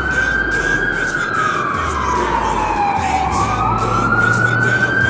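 Emergency vehicle siren in a slow wail: its pitch falls slowly, then rises again near the end, over a low steady hum.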